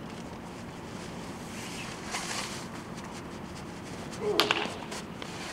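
A baseball bat hitting a pitched ball once in batting practice: a single sharp crack a little over four seconds in, with a brief ring after it.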